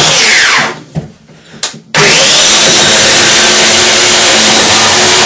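Chainsaw running flat out, its pitch falling as the throttle is let off about half a second in, going almost quiet for about a second, then revving back up and running steadily at full speed while cutting into a couch.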